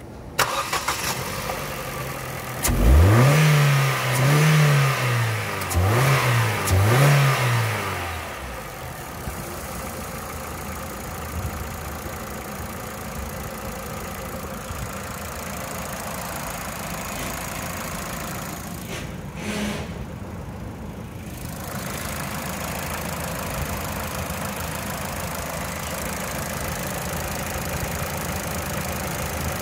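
2012 Ford Focus four-cylinder engine started: it cranks for about two seconds, catches, and is revved up three times. It then settles into a steady idle.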